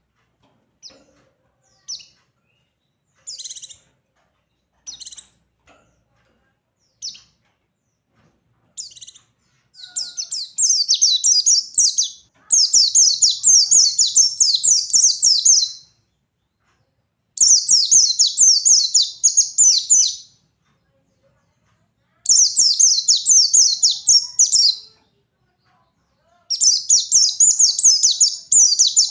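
White-eye (pleci) singing: first single short, high chirps a second or two apart, then from about ten seconds in long runs of fast, high twittering song lasting several seconds each, with brief pauses between. The bird is in full, energetic 'ngalas' song.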